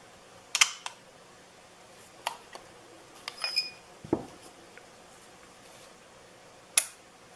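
Scattered clicks and taps of a rifle scope tube and its small parts being handled. About three and a half seconds in there is a short metallic ring, and just after it a duller knock.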